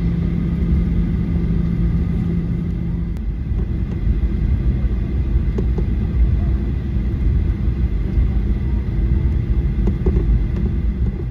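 Airliner cabin noise during taxi: the jet engines and the rolling aircraft give a steady low rumble. A low steady hum in it cuts off about three seconds in.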